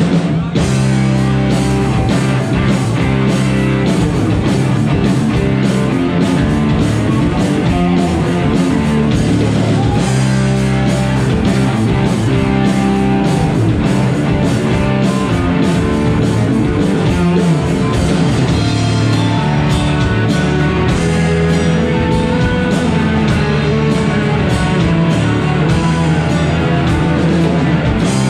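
Live rock band playing an instrumental passage: electric guitars and a drum kit with a steady beat, loud and unbroken.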